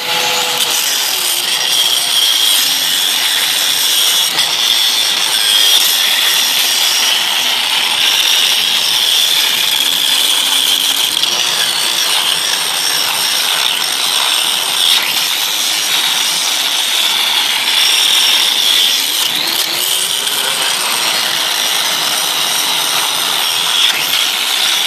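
Angle grinder with a thick grinding wheel running steadily, a loud, even whine, as it grinds into the steel shell of a concrete-filled Lally column to widen the cut line.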